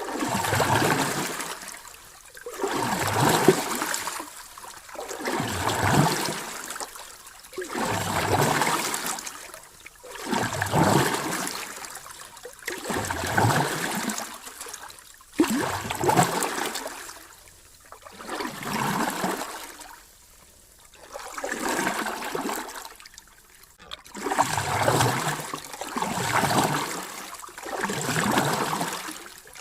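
Ocean waves washing in and drawing back: a rushing surf noise that swells and fades in a steady rhythm, one wave about every two and a half seconds.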